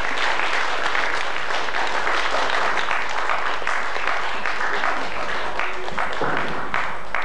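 Audience applauding, many hands clapping together, thinning out near the end. Heard through the hiss of an old mono VHS recording.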